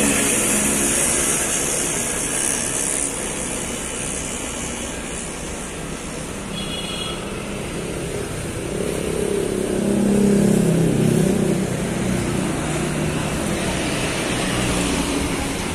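Steady engine and road-traffic noise beside a heavy truck. A louder engine swells and fades as a vehicle passes, from about nine to twelve seconds in.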